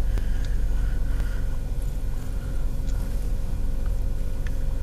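Car engine idling, heard from inside the cabin as a steady low rumble, with a few faint ticks.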